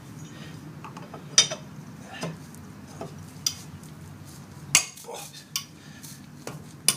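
Sharp metal clanks and clinks of a hand tool working stuck brake bolts loose: about six irregular knocks, the loudest about one and a half and nearly five seconds in.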